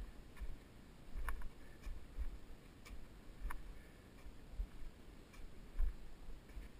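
Footsteps in snow heard through a body-mounted camera: dull thuds at an uneven pace of about one a second, with a few faint ticks between them.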